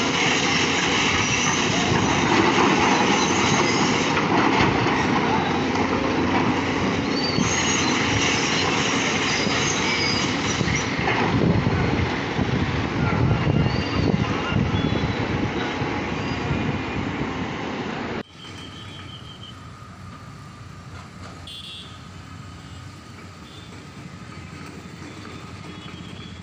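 Loud, steady din of heavy hydraulic excavators working as they bring down a concrete bridge pillar, mixed with the crunch and rumble of breaking concrete and rubble; the noise swells partway through. About two-thirds of the way in it cuts suddenly to a much quieter excavator running beside a dump truck.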